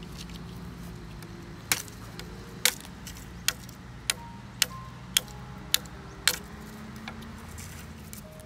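Machete blade striking a green bamboo pole as its branches and tip are trimmed off: about eight sharp chops, roughly half a second to a second apart, each with a brief ring.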